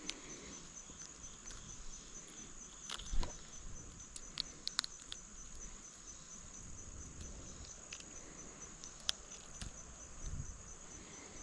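Insects trilling steadily, a high, evenly pulsing chirr, with scattered light clicks and a soft knock about three seconds in.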